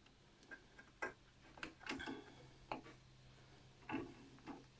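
Faint, irregular clicks and taps of a small fitting being handled and worked by hand on a timber shelf frame, about seven in all, over a low steady hum.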